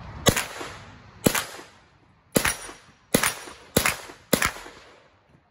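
Six single shots from an Action Arms Model A UZI carbine in 9x19 mm, fired semi-automatically about a second apart and coming quicker toward the end, each followed by a short echo.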